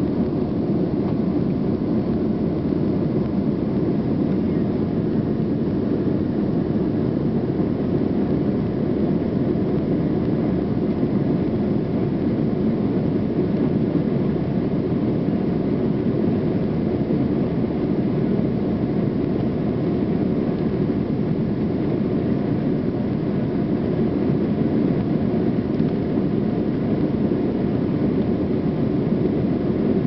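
Jet airliner cabin noise during the climb after takeoff: the engines and rushing air make a steady, low, even rumble that does not change.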